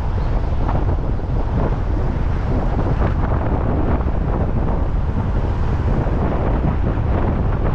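Wind rushing over the microphone of a camera on a moving car, mixed with the car's road noise: a steady, deep rumble with no breaks.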